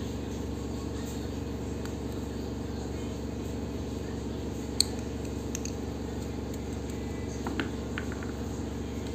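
Small parts of a diecast toy car being handled with a small metal tool: one sharp click about five seconds in and a few faint ticks near the end, over a steady low hum.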